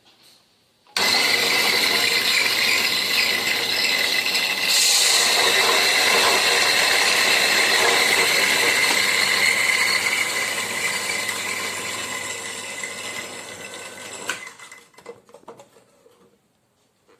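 Electric coffee grinder running on a medium grind setting, grinding coffee beans. It starts suddenly about a second in, runs steadily and gets brighter a few seconds later, then grows gradually quieter before it cuts off near the end.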